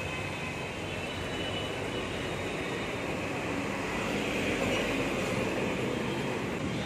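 City street traffic noise: a steady, dense din of passing vehicles, getting a little louder toward the middle.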